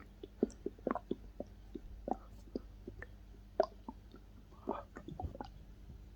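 Stomach gurgling heard up close: irregular small pops and clicks of digestion, with one short, longer gurgle about three-quarters of the way in.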